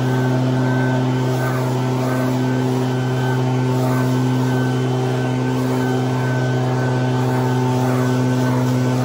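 Echo two-stroke backpack leaf blower running steadily at constant high throttle, blowing dry leaves across grass.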